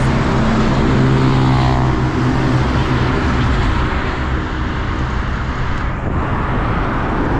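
Busy road traffic passing below an overpass: a steady rush of tyres and engines, with one vehicle's engine hum standing out over the first few seconds and then fading.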